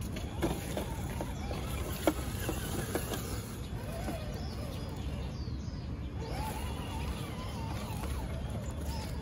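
Traxxas TRX-6 6x6 RC crawler driving over tree roots: its electric motor and drivetrain running at crawling speed while the tyres and chassis knock against the roots, with one sharp knock about two seconds in.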